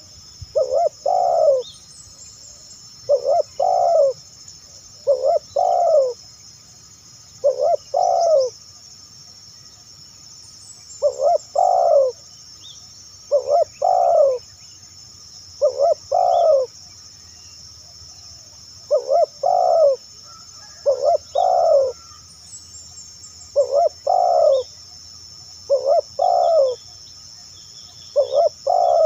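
Spotted dove (tekukur) cooing: low coo notes, mostly in quick pairs, repeated about every two seconds, with two short breaks in the series.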